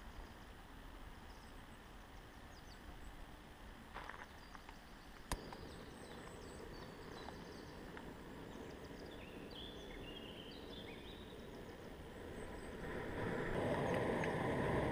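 Quiet outdoor ambience with faint bird chirps and a couple of sharp clicks and knocks from camping cookware being handled. Over the last two seconds a broader sound swells louder.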